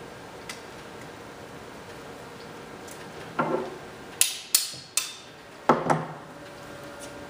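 Long metal file-cabinet hanging-file bar knocking and clanking: one knock about three and a half seconds in, then three sharp clacks in quick succession, then two more knocks close together, some ringing briefly.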